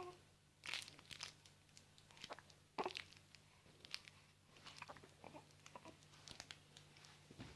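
A baby hiccuping in a bouncer seat, one sharp hiccup about three seconds in, amid small clicks and rustles.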